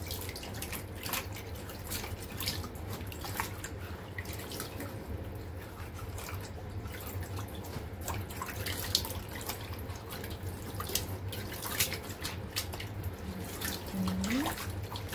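Napa cabbage leaves being washed by hand in a stainless-steel sink of water: irregular splashes and drips as the leaves are swished and lifted out, over a steady low hum.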